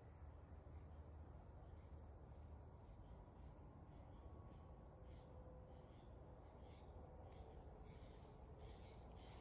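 Faint, steady high-pitched trill of insects, with a low rumble underneath.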